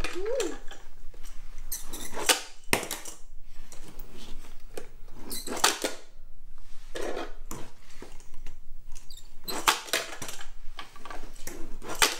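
Tiny Monster Jam Minis toy trucks and a plastic flip-arena playset clattering: irregular sharp clicks and rattles every second or two as the trucks are handled and launched on the playset and table.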